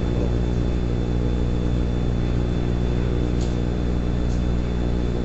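Steady low electrical hum with a thin constant high whine, with a couple of faint clicks in the second half.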